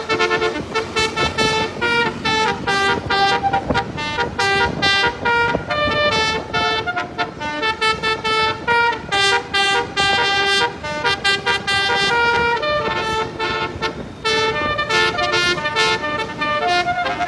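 Telolet-style 'basuri' musical multi-trumpet air horn playing a tune: a quick run of short and held notes that jump in pitch.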